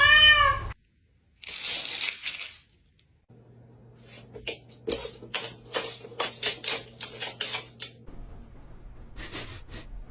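A cat's drawn-out meow, ending under a second in. It is followed by a short burst of hiss and then a run of irregular clicks and taps over a low hum.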